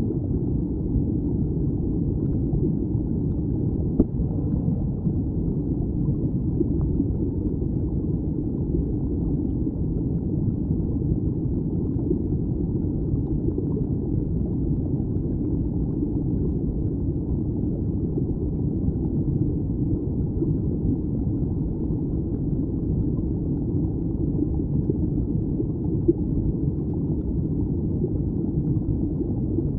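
Muffled, steady low rush of stream water heard underwater, with a faint click about four seconds in and another near the end.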